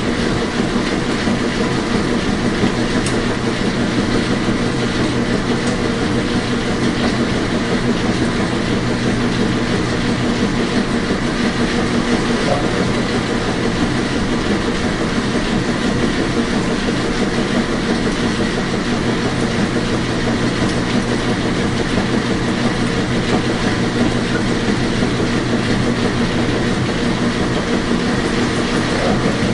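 Washing machine running steadily: an even rushing noise with a constant motor hum underneath, unchanging throughout.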